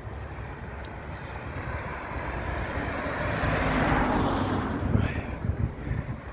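A vehicle passing close by, its noise swelling to a peak about four seconds in and then fading, over steady wind and road rumble on a moving bicycle's microphone.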